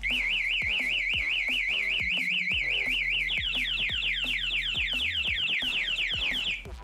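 Aftermarket motorcycle security alarm siren sounding: a loud electronic warble, about five cycles a second. About a third of the way in it switches to a faster run of repeated sweeping chirps, then cuts off abruptly shortly before the end.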